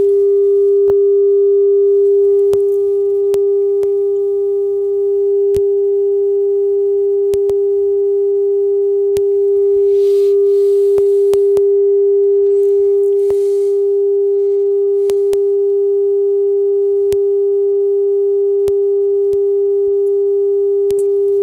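Steady 400 Hz sine test tone, the calibration signal fed through the reel-to-reel's record electronics while its record level is set. It holds one pitch, with faint overtones and small shifts in level.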